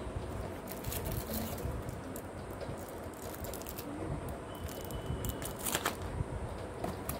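Small cardboard drink cartons being picked up and set down by hand: light taps and scrapes, with a sharper cluster of clicks about six seconds in, over a steady low background rumble.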